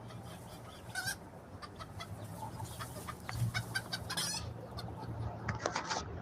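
Chickens clucking in short, scattered calls over a steady low hum.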